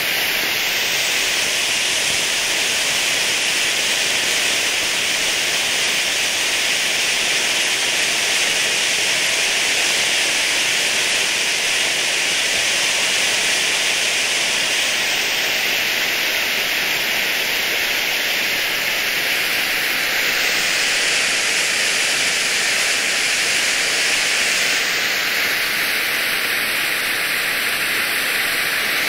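Ground firework fountain burning, a steady hissing rush of sparks that does not let up.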